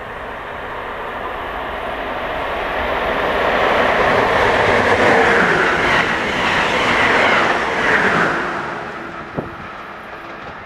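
Amtrak Keystone passenger train with ACS-64 electric locomotives at both ends passing at over 105 mph: a rush of wheel and air noise that builds for about four seconds, peaks as the cars sweep by, and falls away about nine seconds in. A brief sharp click comes just after it fades.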